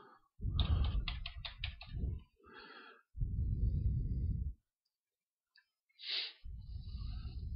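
A quick run of computer-keyboard keystrokes in the first two seconds. Then the speaker breathes out twice onto a close microphone, each breath a low rumble lasting a second or two.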